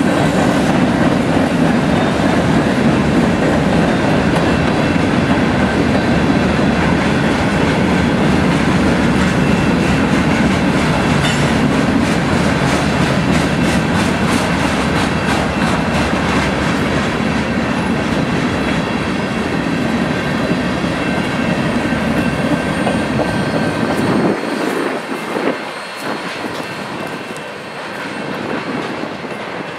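Freight train cars, covered hoppers and tank cars, rolling past close by: a steady rumble of steel wheels on rail with a rapid clickety-clack over the rail joints and faint high wheel squeal. About three-quarters of the way through, the last car passes, the rumble drops away and the sound fades as the train recedes.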